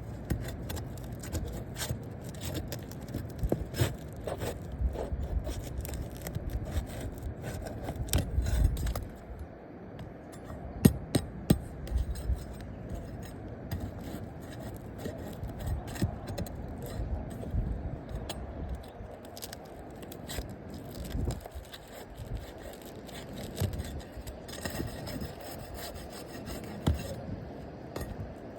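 Asphalt roof shingles being scraped and rubbed as they are worked loose by hand, with many short sharp clicks and a few louder knocks about eleven seconds in.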